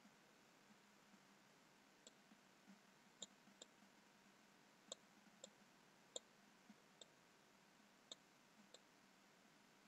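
Computer mouse clicks, faint and irregular, against near silence: about a dozen button clicks and scroll-wheel notches, starting about two seconds in.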